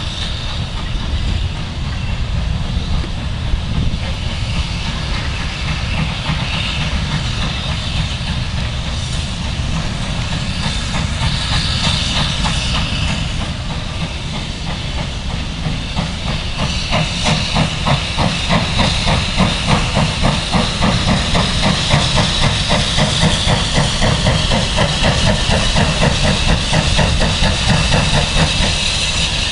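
Steam locomotive hissing steam, with a fast, even rhythmic beating that starts about halfway through and grows a little louder.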